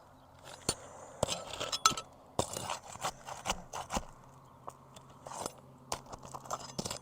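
Metal pry bar scraping and clinking against brittle asphalt shingles as the seals are broken and fasteners are pried out, in an irregular run of sharp clicks, scrapes and crunches.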